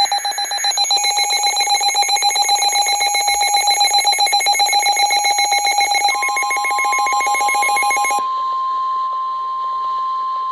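Weather alert radio sounding an emergency alert: a rapid pulsing electronic alarm, joined about six seconds in by the steady single-pitch NOAA Weather Radio warning alarm tone (1050 Hz). The pulsing alarm stops about eight seconds in, leaving the steady tone, which signals that a warning message is about to be broadcast.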